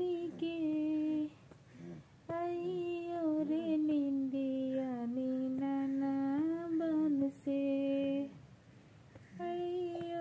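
A woman humming a lullaby tune in long, gently gliding held notes, phrase by phrase, with a short pause near the end before she carries on.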